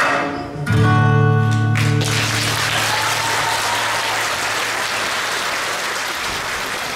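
Recorded music ends on a held chord with a deep low note, which stops about two seconds in, and an audience breaks into applause.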